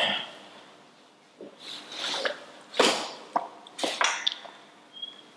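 A man's mouth and breath sounds while drinking water from a plastic cup: a sharp sip at the start, then a string of short breaths, swallows and puffs about one every half second to a second, the loudest about three seconds in.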